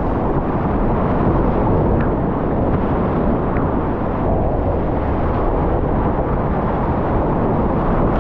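Steady, deep rush of whitewater rapids.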